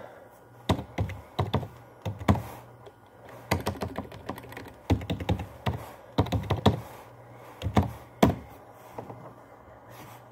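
Laptop keyboard being typed on: irregular runs of keystrokes and clicks with short pauses between them, over a steady low hum.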